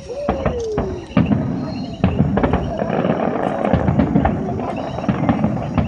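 Fireworks going off: a falling whistle at the start, a few sharp bangs, then a dense run of crackling pops from about two seconds in.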